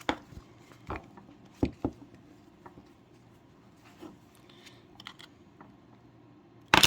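Small pry tool clicking and scraping against an iPod Nano's parts while working its lithium battery free: a series of sharp clicks and ticks, with the loudest cluster near the end.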